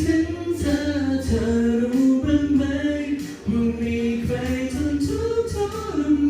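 A cappella singing: a voice holding and gliding between sung notes with no instruments behind it.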